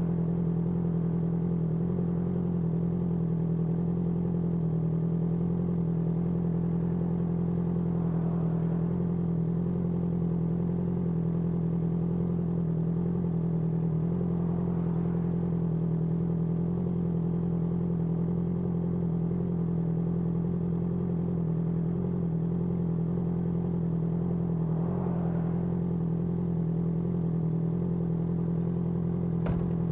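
Honda CBR650R's inline-four engine running steadily at unchanging revs through an IXIL IXRACE aftermarket exhaust, with a short click near the end.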